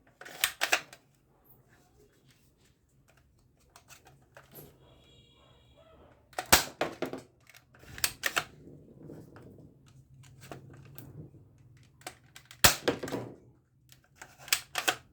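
Toy dart gun being handled, loaded and fired: several clusters of sharp plastic clicks and snaps, over a faint steady low hum.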